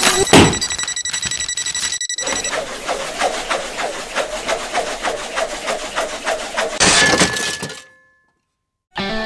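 A loud smashing crash just after the start, with a steady high ringing tone for about two and a half seconds, then a fast run of clattering clicks for several seconds. It ends in a sudden noisy burst and cuts off to silence about a second before the end.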